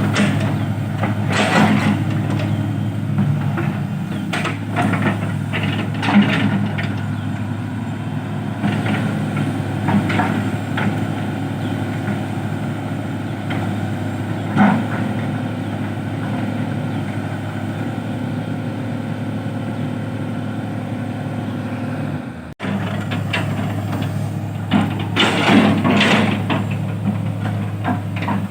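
Excavator's diesel engine running steadily, with scattered knocks and clanks from the machine working. The sound breaks off for an instant about three-quarters of the way through.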